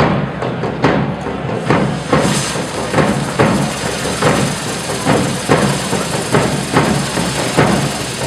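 A drum beating a steady march rhythm, about two strokes a second. From about two seconds in, the steady hiss of fireworks spraying sparks runs over the beat.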